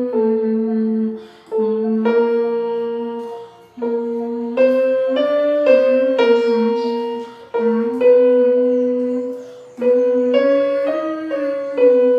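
Electronic keyboard playing short phrases of notes that step up and down, with brief breaks between the phrases, while a man hums the notes along with closed lips as a vocal warm-up and tuning exercise.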